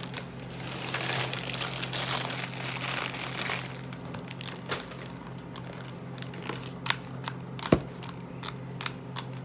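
A clear plastic bag of cereal loops crinkling as it is handled and cereal is spooned out, for about the first three and a half seconds. Then come scattered light clicks of spoons and cereal against plastic bowls, with one sharper tap about eight seconds in.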